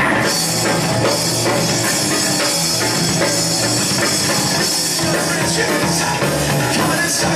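Live rock band playing a badly recorded song: drum kit with steady cymbal wash over electric guitars and bass, with no vocals.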